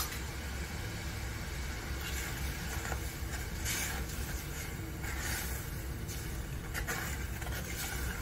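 A spoon stirring sugar and water in a saucepan, making a few short scraping sounds against the pan, over a steady low rumble.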